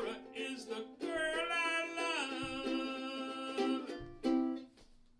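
Ukulele strummed under a man's singing voice as the song ends. A last strum about four seconds in rings out and fades away.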